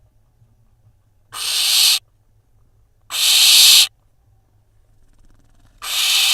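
Barn owl nestlings giving three harsh, rasping hiss calls about two seconds apart, each lasting well under a second. This is the hissing 'snore' that barn owl chicks make to beg for food.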